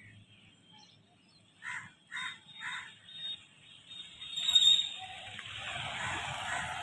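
Three short calls about half a second apart, then an approaching motorcycle whose engine and road noise rise suddenly about four seconds in and stay loud.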